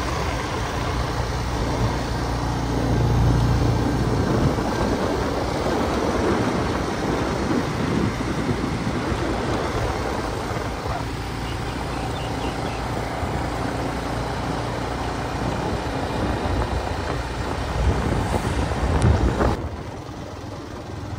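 Steady rush of wind and road noise from a motorbike riding along a paved road, with a low engine rumble underneath. The noise grows louder briefly a few seconds before the end.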